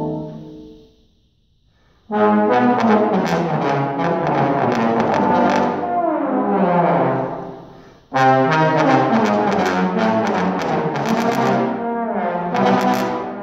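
Trombone choir playing: a held chord dies away, and after a pause of about a second the ensemble comes in loudly with short, repeated notes and falling slides. It fades out briefly about eight seconds in, then comes back in suddenly.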